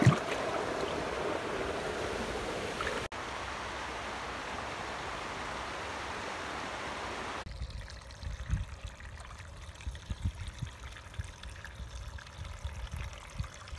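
Shallow stream water running steadily, with a momentary break about three seconds in. About halfway through the water sound stops suddenly, leaving quieter scattered low bumps and rustles of hands working in wet, grassy mud.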